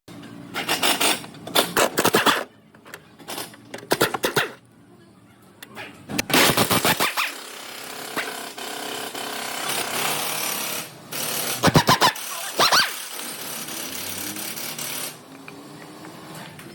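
Impact wrench hammering in about five short bursts on a car's rear shock absorber mounting bolts.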